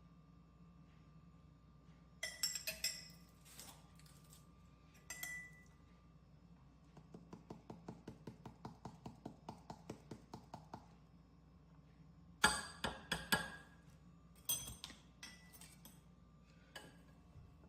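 A kitchen utensil clinking against a mixing bowl in hand-mixed cake batter: a few sharp ringing knocks, a stretch of quick even stirring strokes at about five a second in the middle, then more knocks and taps.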